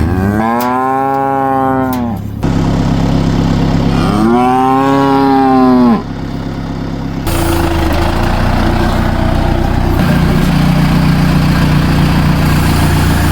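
A cow mooing twice: two long calls, each rising and then falling in pitch, a couple of seconds apart. After them an engine runs at a steady idle.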